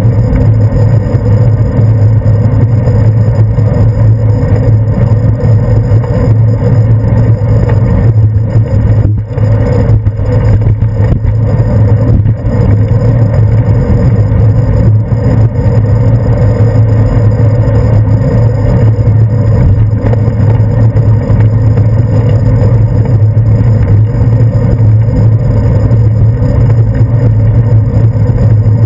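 Steady, loud low rumble of wind and road vibration picked up by a handlebar-mounted GoPro Hero 2 in its housing on a moving bicycle.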